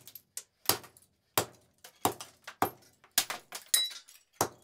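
A golf club repeatedly striking the broken circuit board and speaker of an alarm clock radio on a carpeted floor. It lands about seven sharp hits, roughly one every two-thirds of a second, with small plastic and metal pieces clinking after some of them.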